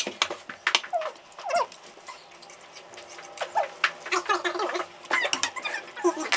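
Cutlery clicking and clinking on plates during a meal, mixed with several short, high-pitched vocal sounds.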